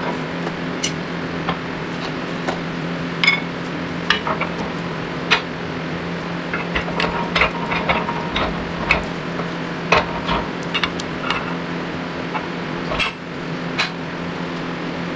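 Scattered metallic clicks, clinks and knocks of steel tools and parts being handled during shop-press work on a wheel bearing, over a steady machine hum.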